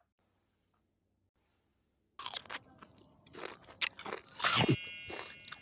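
Crunchy eating sounds, bites and chewing, starting about two seconds in; near the end a high ringing chime sounds over the crunching.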